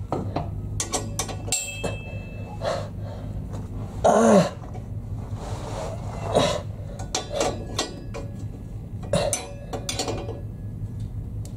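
Hand wrench working the nuts and bolts on a steel exhaust pipe flange, with irregular metal clicks and clinks as the joint is tightened.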